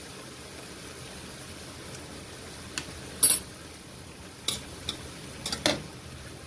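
Cucumber and beef stir-fry sizzling gently in a pan, with a few sharp clinks of a metal utensil against the pan, the loudest a little after three seconds in and a short cluster near the end.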